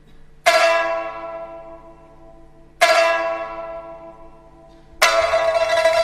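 A bell-like tone struck three times, about two seconds apart, each stroke ringing with many overtones and fading slowly; the third stroke, about five seconds in, stays loud.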